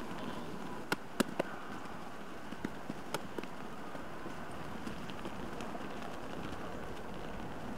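Steady outdoor background hiss with a few sharp clicks: three close together about a second in, then several fainter ones a couple of seconds later.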